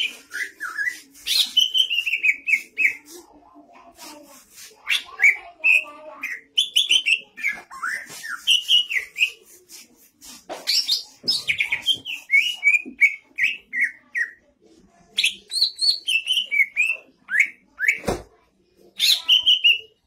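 A caged cucak ijo (green leafbird) singing in loud bursts of rapid chirping, whistled notes, most sliding downward, broken by short pauses. A single sharp knock near the end.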